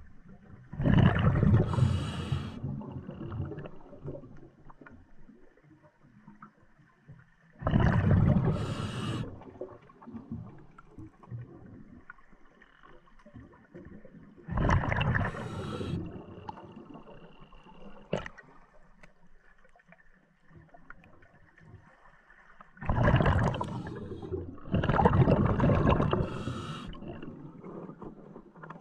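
A scuba diver breathing underwater through a regulator: four breaths about seven seconds apart, each a loud burst of bubbling exhaust followed by a short hiss.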